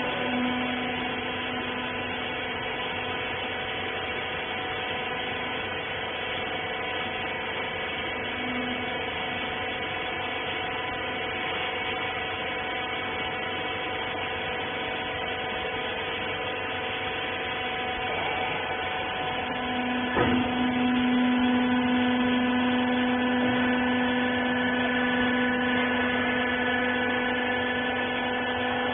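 Hydraulic clothes baler's electric motor and pump running with a steady hum. There is a sharp knock about 20 seconds in, after which the hum is louder.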